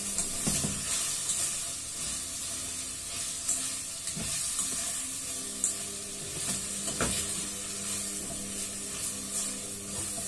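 A spatula stirs and scrapes pancit noodles and vegetables around a steel pot over a gas flame, with a steady sizzle of frying under it. A few sharper knocks come as the utensil strikes the pot.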